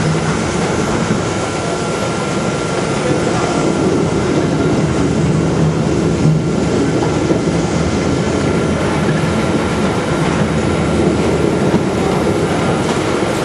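Steady running noise of potato-handling machinery, with a faint constant whine, as a hydraulic container tipper slowly tilts a box of potatoes toward a dosing hopper.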